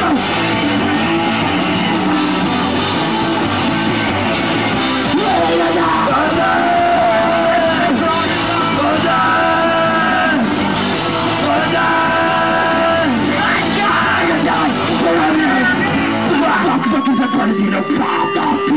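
Hardcore punk band playing live, loud and without a break: drums, electric guitar and shouted vocals.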